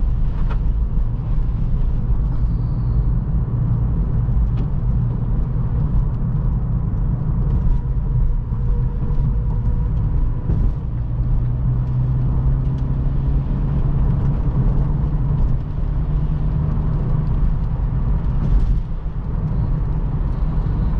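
2023 Acura Integra driving at a steady pace: constant engine and tyre rumble on a rough, patched road, with a few faint knocks from bumps along the way.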